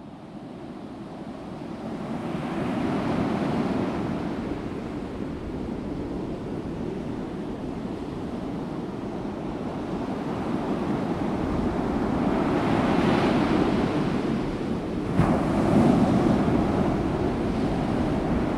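Ocean surf and wind, fading in from silence and rising and falling in slow swells, with a sharp click about fifteen seconds in.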